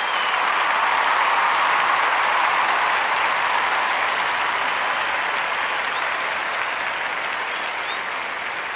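Crowd applauding, a dense even clatter of clapping that slowly fades.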